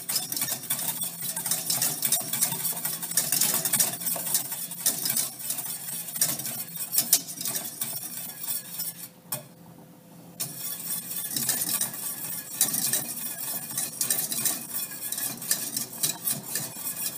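Wire whisk beating beef stock into a thick flour gravy in a stainless steel saucepan, its tines clicking rapidly against the pot. The whisking stops for about a second just past halfway, then resumes.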